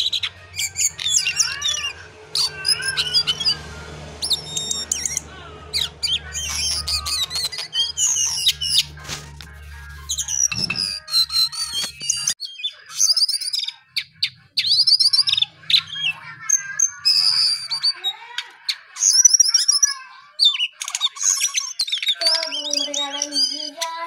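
Male jongkangan songbird singing a long, varied song of quick chirps, trills and whistles with brief pauses. A low steady hum sits under the first half.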